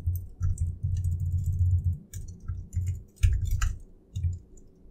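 Typing on a computer keyboard: irregular key clicks with dull thuds of the keystrokes, coming in short runs.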